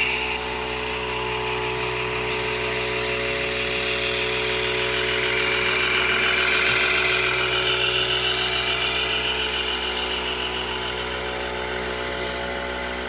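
Radio-controlled scale model fire truck driving past, a steady engine-like hum with a whine over it, growing louder as it comes close about halfway through and easing off as it drives away.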